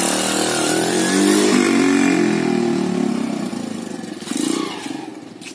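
Yamaha motorcycle engine revving as the bike pulls away, its pitch rising through the gears, then fading as it rides off into the distance.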